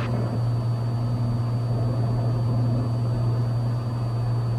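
Cessna 182's engine and propeller droning steadily in level flight, a constant low hum with no change in pitch.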